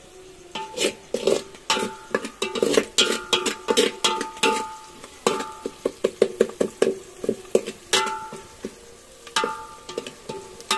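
Metal spoon stirring in a metal cooking pot, clanking against its sides in quick, irregular strikes, each ringing briefly.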